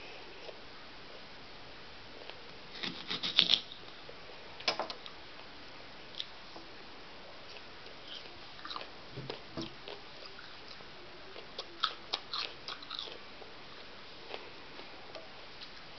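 A person biting into and chewing raw onion: crisp crunches in short clusters, loudest about three seconds in and again near five and twelve seconds, with softer chewing sounds between.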